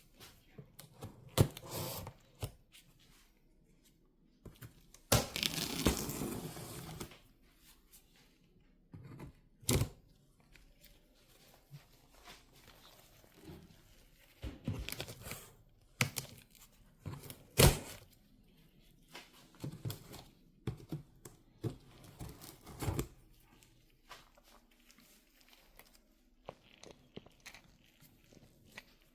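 A cardboard shipping box being opened by hand: a long tearing rip of about two seconds some five seconds in, with rustling and crinkling of the packing and scattered sharp knocks as the box and its contents are handled.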